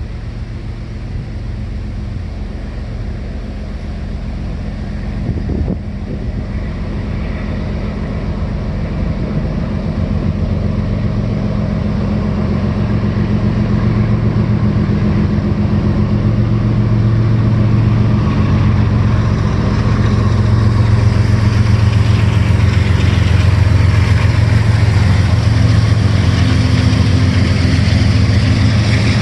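CSX GE diesel-electric freight locomotives working hard under load to keep a heavy train moving up a slight grade. The engines' deep, steady drone grows gradually louder as they approach.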